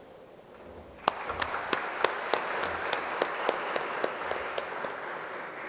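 Audience applauding, starting about a second in and tapering off near the end, with a few louder single claps standing out.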